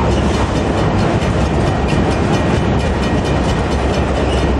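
CN freight train's autorack cars rolling past close by: a steady rumble of steel wheels on rail, with faint repeated clicks of wheels over the track.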